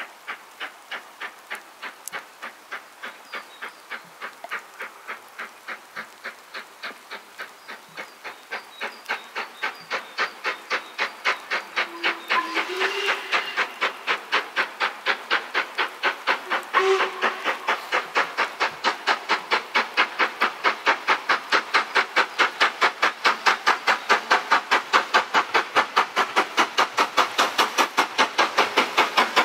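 LMS Black Five 4-6-0 steam locomotive No. 45305 working a train under steam, its two-cylinder exhaust beating in an even rhythm that grows steadily louder as it approaches.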